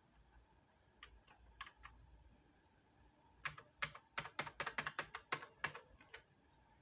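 Computer keyboard keys clicking: a few scattered taps, then a quick run of about fifteen keystrokes starting about three and a half seconds in and lasting around two seconds, as the Tab key is pressed repeatedly to cycle the Alt+Tab window switcher.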